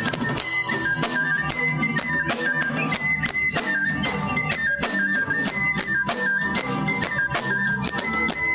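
Folk band playing an instrumental passage: a quick, stepping melody line over a steady drum beat.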